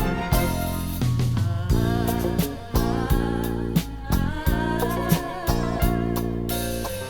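Instrumental karaoke backing track of a 1980s enka song, with no lead vocal: bass and chordal accompaniment on a steady beat under a wavering lead melody line.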